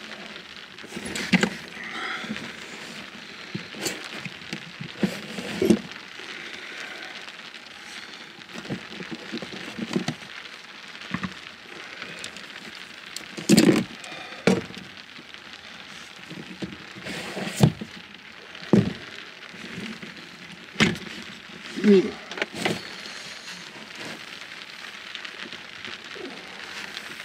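Steady rain on a pickup truck's camper shell, heard from inside. About ten scattered knocks and clatters come over it as a Jetboil stove and a gas canister are unpacked and set down.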